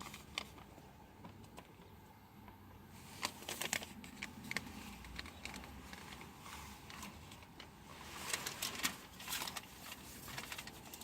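Paper receipts being handled: faint intermittent rustling and light clicks, busiest about three seconds in and again near the end.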